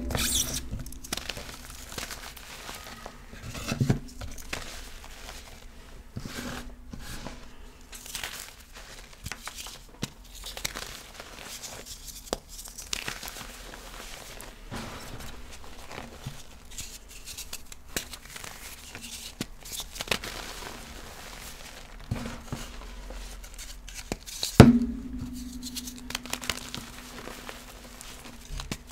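Reformed gym chalk blocks being crushed and crumbled by hand: a steady run of dry, crunchy crackling. Two louder thumps with a short ringing tail stand out, one at the start and one near the end.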